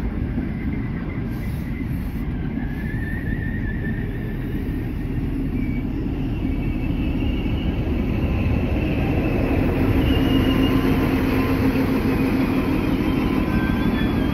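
XPT passenger train rolling into the platform: a steady rumble of wheels on rails with thin, intermittent squeals. The sound grows louder and a steady hum comes in during the second half, as the rear diesel power car draws near.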